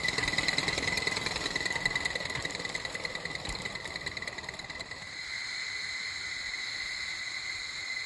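Aster Lion live-steam model locomotive running: fast ticking exhaust beats and wheel clatter over a steady high-pitched hiss. The beats fade away about halfway through, leaving the hiss.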